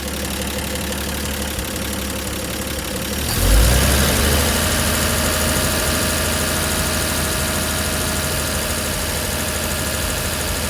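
A machine running steadily, with a stack of steady tones; about three and a half seconds in it gets louder, with a deeper hum underneath.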